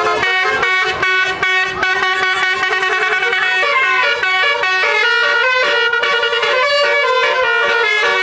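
Bus's basuri multi-tone telolet horn playing a melody, several horn notes sounding together and changing pitch in steps.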